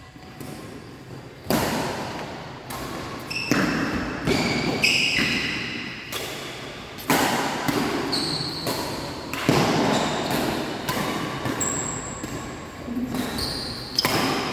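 Badminton rally in a reverberant sports hall: sharp racket hits on the shuttlecock every one to two seconds, each ringing off the hall, with short squeaks of court shoes on the floor between them.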